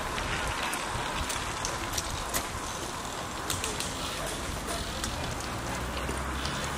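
Road ambience as a group of Moulton small-wheeled bicycles rides past: a steady hiss with scattered light clicks, and faint voices.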